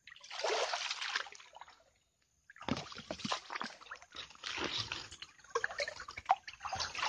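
Shallow swamp water splashing and sloshing in irregular bursts: a short run of splashes, a pause of about a second, then a longer, uneven run of splashing.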